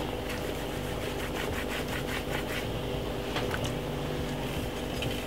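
A steady mechanical hum, with soft rubbing and a run of light ticks from hands pinching and working dumpling dough over a glass bowl; a couple of single taps come later.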